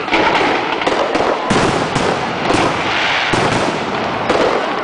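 Finale of an aerial fireworks display: a dense, continuous barrage of shell bursts, bangs overlapping one another, with heavier booms about once a second.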